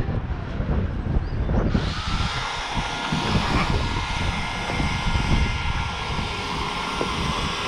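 Wind rumbling on the microphone high in a tree, joined about two seconds in by a steady hiss with a faint whine that holds to the end.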